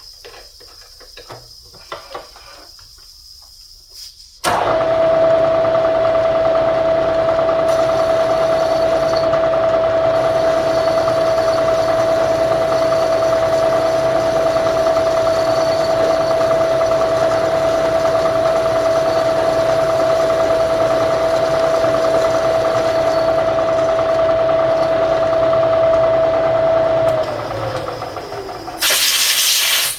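Milling machine spindle starting up a few seconds in and running an end mill with a steady high whine, then spinning down with a falling pitch near the end. A short, loud hiss comes just before the end.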